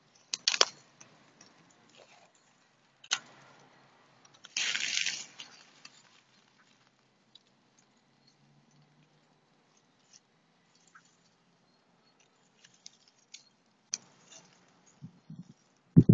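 Dry grass and twigs rustling and crunching: a few sharp rustles in the first five seconds, one lasting about a second, then only sparse faint ticks.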